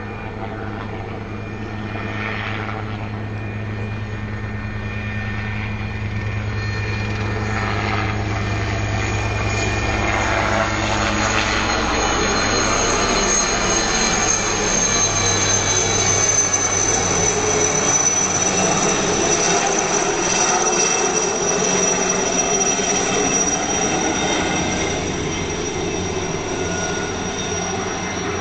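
Turbine helicopter flying low overhead: a steady rotor drone and a high turbine whine grow louder as it comes over, then ease off, the whine dropping slightly in pitch as it moves away.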